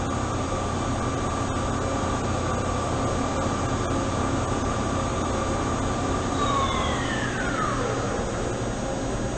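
Doosan Puma 400LC CNC lathe spindle running at 500 RPM in low gear, a steady hum with a steady whine. About six and a half seconds in the whine falls in pitch and fades as the spindle winds down.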